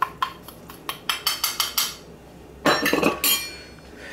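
A metal spoon tapping and scraping brown sugar out of a small stainless steel bowl into a saucepan, a quick run of clinks. About three seconds in comes a clatter with a short metallic ring as the bowl and spoon are set down on the stovetop.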